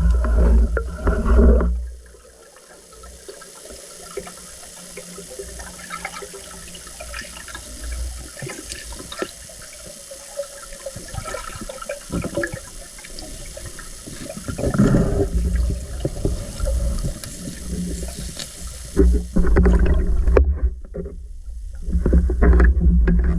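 Muffled water sounds from a spearfishing dive: loud, low splashing and bubbling at the start, a quieter stretch of fine crackling ticks, then more splashing and bubbling near the middle and towards the end.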